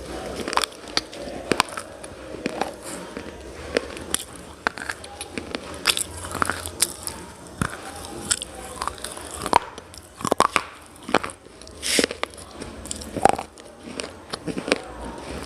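A person biting and crunching hard, brittle mineral pieces, with irregular sharp snaps and cracks between quieter chewing. The loudest crunches come a little past the middle.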